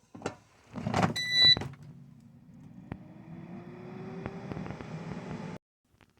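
Air fryer being started: a couple of knocks and a short beep about a second in, then its fan motor spinning up, the hum rising slowly in pitch until it cuts off suddenly.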